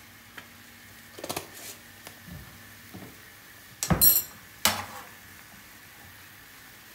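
Metal utensils clinking and knocking in a frying pan, with one loud, ringing clink about four seconds in, over the faint sizzle of a milk-and-cheese sauce bubbling in the pan.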